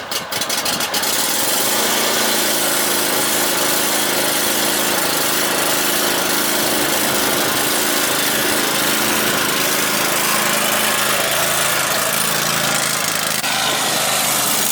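Small lawn mower engine catching about a second in, then running steadily at an even speed.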